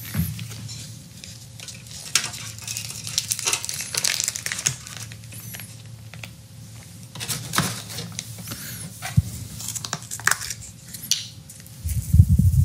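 Plastic bag crinkling and rustling as a raw steak is slid out of it into an aluminium foil tray, with irregular light clicks and taps from the tray being handled. A louder low thump comes near the end.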